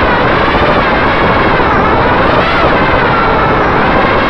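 Racing quadcopter's four EMAX RS2205 brushless motors and propellers whining loudly, the pitch dipping and climbing again twice as the throttle changes, heard from the onboard camera.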